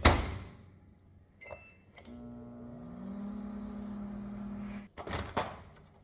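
Microwave oven door shut with a thump, a short keypad beep, then the oven running with a steady hum for about three seconds before it stops and the door is knocked open.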